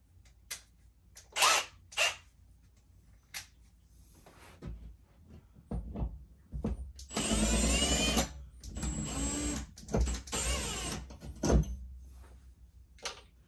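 Cordless drill with a T25 Torx bit working a screw at a drywall shelf bracket: two runs of a few seconds each, the motor pitch rising and falling as the trigger is eased and squeezed. Sharp knocks and clicks of handling the bracket and tool come before and after.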